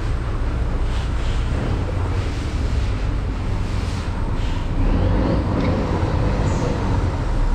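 A steady low rumble of background noise with no clear events in it.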